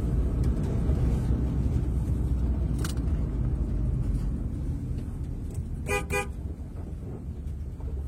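Motor vehicle on the move, a steady low engine and road rumble, with two short car-horn toots close together about six seconds in.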